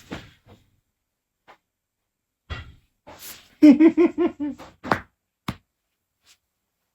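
A few sharp knocks and thumps. Between them comes about a second of a high-pitched voice, quickly rising and falling.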